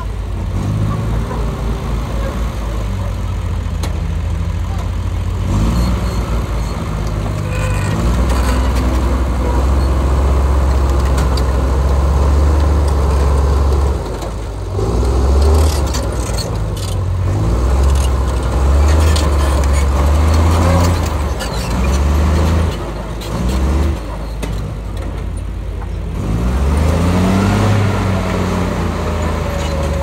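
Heavy diesel engines of earthmoving machines running, revving up and down several times.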